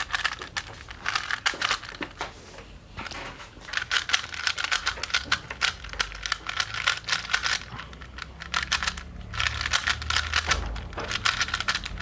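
Rubik's-brand 3x3 cube being turned rapidly by hand: fast plastic clicking and clacking of the layers as it is broken in after fresh water-based lube, with a couple of brief pauses.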